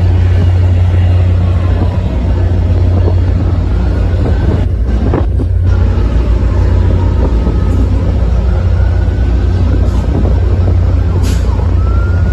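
EMD F40PH-type diesel locomotive running as it hauls a commuter train of bilevel coaches out, a steady low engine rumble, with faint high squeals gliding up and down above it.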